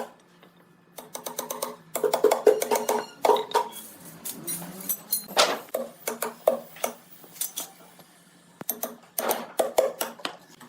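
Clatter of sharp clicks and knocks coming in quick clusters, with a short pause near the end.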